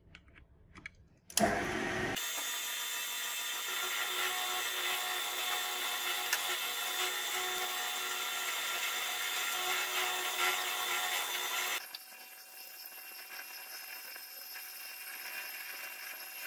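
A few light metal clicks, then a drill press bit cutting into a brass block: a steady machine noise with a high, ringing cutting tone. About twelve seconds in it drops to a quieter steady cutting sound.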